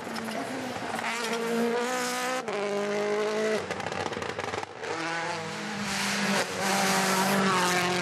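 Hyundai i20 N Rally1 car's 1.6-litre turbocharged four-cylinder engine revving hard, its pitch rising and falling through gear changes as it drives fast along a tarmac stage. The sound jumps abruptly several times where short clips are cut together.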